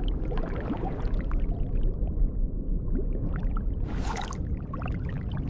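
Underwater ambience: a steady low rumble with bubbling and gurgling water, and a brief hiss about four seconds in.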